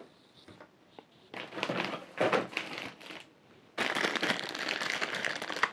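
Plastic bag crinkling as it is handled: short bursts of rustling from about a second in, then a steadier stretch of crinkling over the last two seconds.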